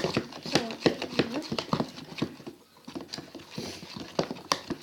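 A spoon stirring and beating thickening slime in a container, with irregular clicks and taps of the spoon against the sides, several a second.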